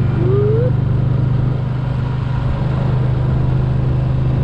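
Vehicle engine running steadily with a low drone while driving, with one short rising squeak near the start.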